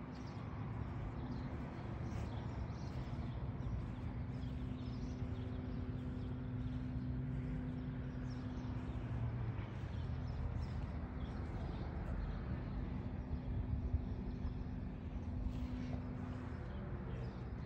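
Outdoor ambience: a steady low mechanical hum with a faint, wavering engine-like tone, and a few faint bird chirps over it.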